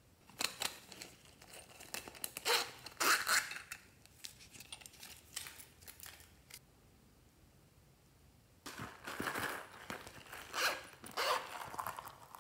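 Clicks and rustling of hands handling and opening a small round plastic container during the first few seconds. After a quiet pause, a run of rasping as the zips of two small pouches are pulled open.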